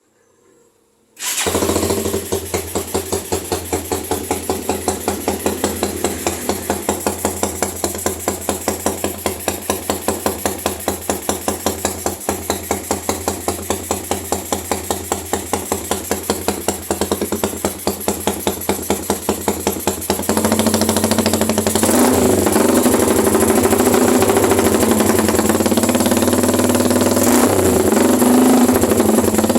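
Rusi 150 motorcycle's single-cylinder engine starting about a second in and idling with an even pulsing beat; about twenty seconds in it gets louder and rougher, as if given some throttle.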